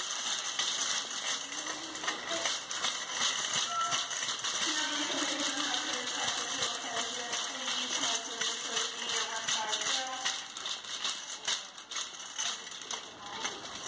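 Wire shopping cart rattling as it is pushed briskly along a hard store floor.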